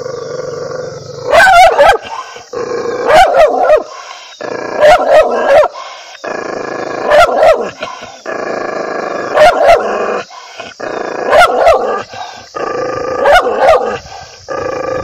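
An angry dog barking in short bouts of two or three barks, about every two seconds, with a steady growl held between the bouts.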